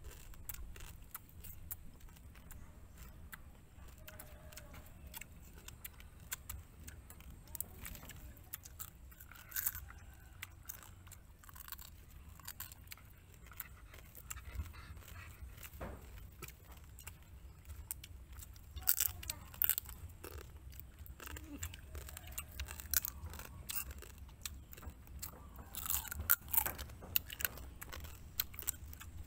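Close-up chewing and crunching of cooked crab, the shells cracking between the teeth in many short, sharp crunches that come thickest and loudest about two-thirds of the way in and again near the end.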